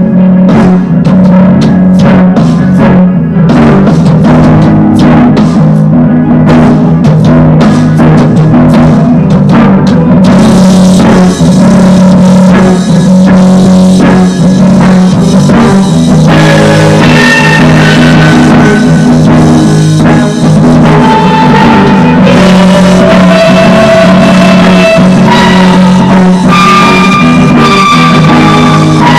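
Rock band playing without vocals: a drum kit hitting over a loud, droning low guitar tone. About ten seconds in the sound fills out and grows denser, and later held higher guitar notes ring out over the drone.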